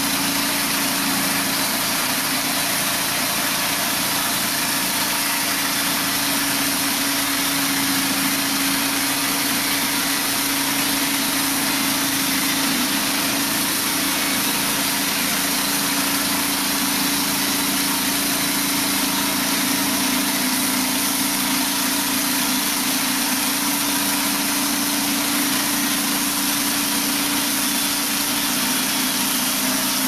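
Gas engine of a Norwood Super LumberMate 2000 portable bandsaw mill running steadily, with its band blade sawing lengthwise through an elm log.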